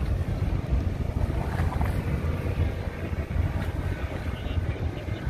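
Wind buffeting the microphone in a heavy, uneven low rumble, over choppy lake water splashing against a concrete seawall.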